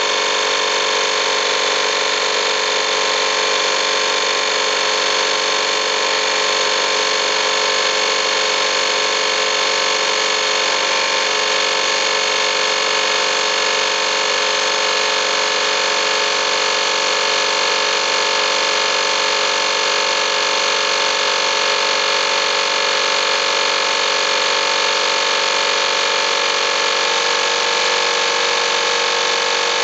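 Campbell Hausfeld FP2028 1-gallon, 120 V air compressor running steadily as it fills its tank, the pressure building from about 40 to 75 psi.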